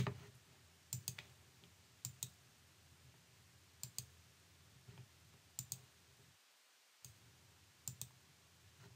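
Faint computer mouse clicks: button presses and releases in quick pairs, about once a second.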